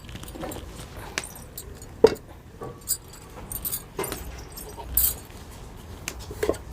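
Scattered metallic clinks and knocks of a kadhai and cooking utensils being handled, with the sharpest knock about two seconds in.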